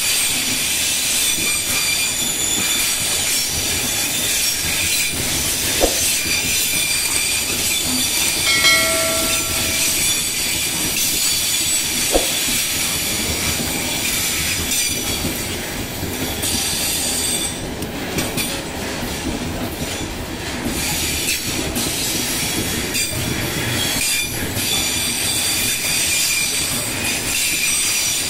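Loaded coal gondola wagons of a freight train rolling past: steel wheels screeching in high, shifting tones over a steady rumble, with two sharp knocks about six and twelve seconds in. A brief pitched tone sounds about nine seconds in.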